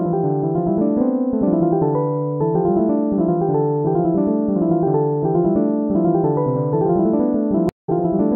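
Background music: a piano tune of repeating phrases, cutting out for a split second near the end.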